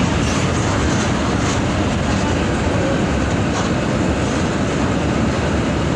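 Mercedes-Benz OF 1722M bus on the move: steady engine and road rumble with a few light rattles.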